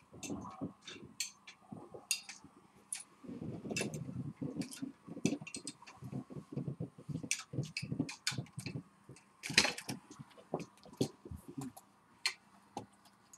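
Irregular clicks, taps and soft knocks in quick succession, with one sharper, louder click about ten seconds in.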